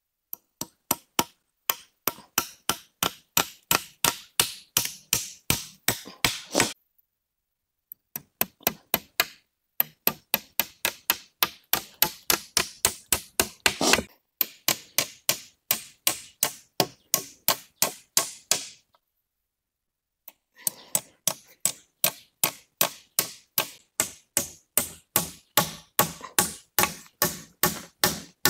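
Hammer driving nails into a bamboo frame: quick, steady blows, about three or four a second, in four runs with short pauses between them.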